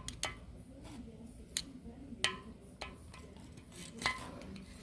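A handful of light metallic clinks and taps, irregularly spaced, with one louder clink a little past two seconds in and another about four seconds in.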